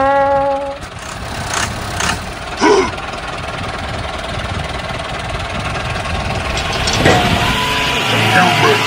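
Tractor engine running steadily, with a few sharp clicks about two seconds in.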